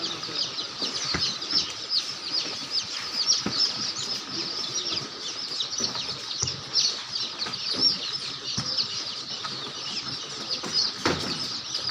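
A flock of chickens calling: a dense, unbroken chorus of high, quick chirps with occasional clucks.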